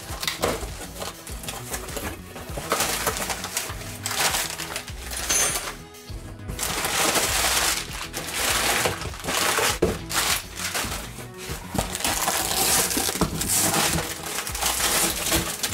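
Clear packing tape peeled off a cardboard shipping box and the flaps pulled open, then crumpled newspaper packing rustling and crackling as it is pulled out. Background music plays underneath.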